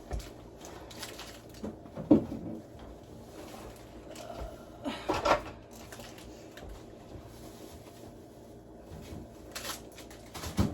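Groceries being handled and set down: a few scattered knocks and rustles of packaging, the sharpest knock about two seconds in.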